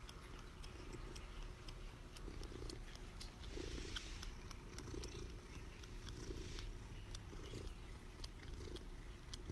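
Domestic cat purring steadily, a faint low rumble that swells and fades in a slow, even rhythm.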